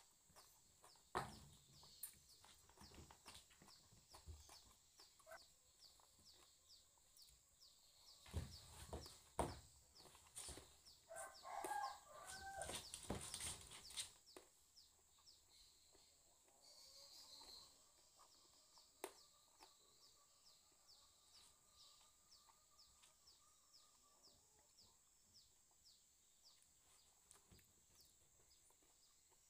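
A chicken calling faintly in the background, clearest a little before the middle, among soft clicks and a few louder knocks from eating out of a bowl by hand.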